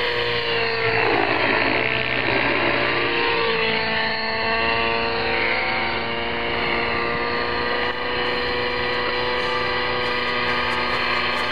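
Radio-controlled model helicopter in flight: a steady humming whine from its rotor and power unit, its pitch bending up and down as it manoeuvres, with a louder rushing sweep about a second in.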